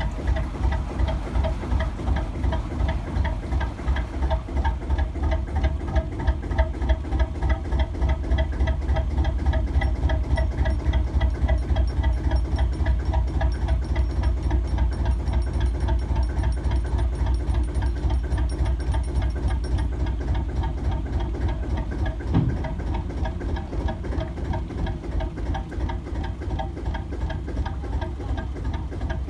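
Lister JP2 two-cylinder diesel engine of a narrowboat running at low speed, a steady even throb, a little louder in the middle stretch, with a single knock about three-quarters of the way through.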